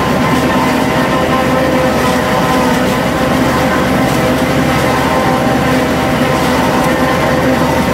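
Heavy diesel farm machinery running steadily during corn silage making, a loud even drone with several steady tones and no change in engine speed.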